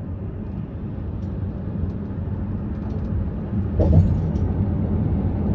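A vehicle driving, a low steady rumble of engine and road noise, with a brief bump about four seconds in.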